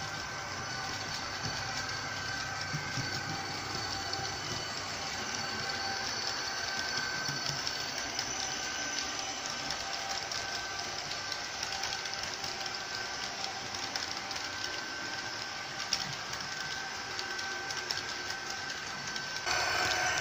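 Model electric train running on the layout's track: a steady whine from its small electric motor over the rolling noise of its wheels on the rails. The level steps up near the end.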